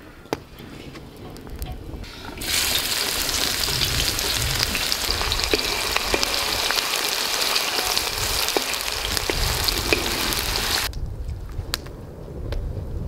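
Chopped onions sizzling in hot oil in a large black wok, the sizzle starting abruptly a couple of seconds in and cutting off near the end, with a few light taps from a wooden spatula stirring them.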